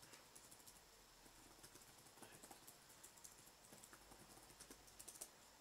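Faint typing on a tablet's clip-on keyboard: quick, irregular key clicks, with a short run of louder taps near the end.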